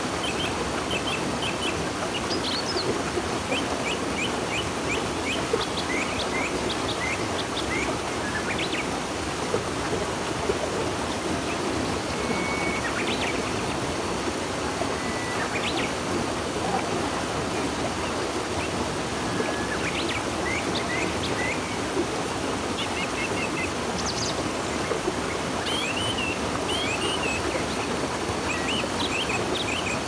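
River water running steadily, with small birds chirping over it in quick runs of short chirps and a few brief whistled notes.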